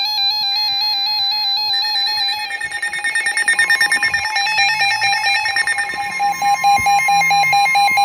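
Several NOAA weather alert radios, a Midland among them, sounding their alarms at once for a Special Marine Warning: overlapping warbling electronic tones with a rapid beeping, and a steady higher tone joining about halfway through.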